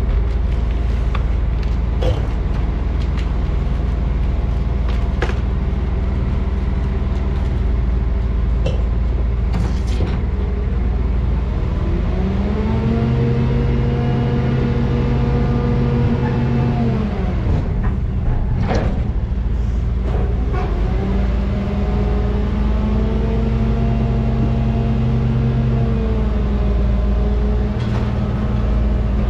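Tipper lorry's diesel engine running, revving up and holding higher revs twice for several seconds. Scattered knocks and clicks in the first few seconds.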